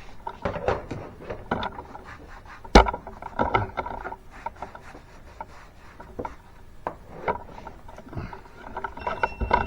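Irregular rubbing and scraping with scattered clicks and one sharp knock a little under three seconds in.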